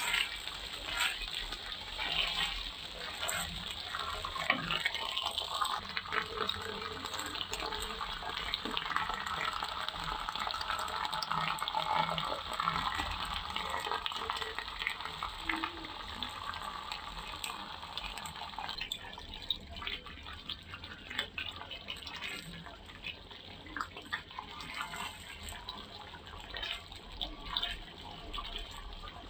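Water running from a kitchen tap into a sink, with small clinks and knocks of things being handled under it.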